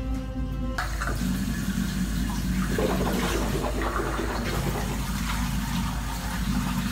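Water running from a bathroom sink tap, a steady rush that starts about a second in.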